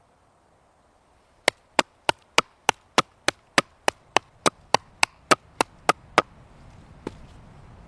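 A quick, even run of about seventeen chopping strokes on wood, roughly three a second, then one last stroke a moment later.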